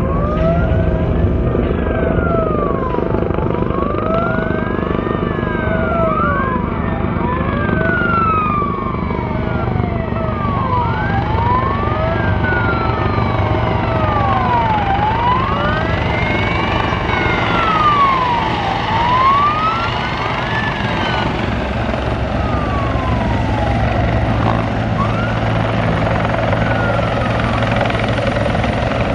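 Several fire-department emergency vehicle sirens wailing at once, their rising and falling tones overlapping, over a steady low rumble. The sirens fade out about two-thirds of the way through, while the low rumble carries on.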